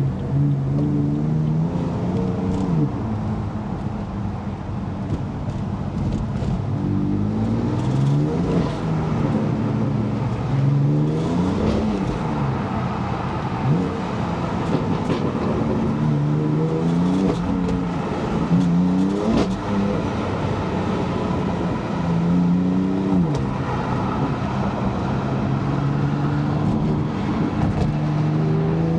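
Stage 2 tuned BMW F80 M3's twin-turbo inline-six accelerating hard through the gears in repeated pulls. The revs climb and fall sharply at each upshift, with sharp cracks from the exhaust at several of the shifts.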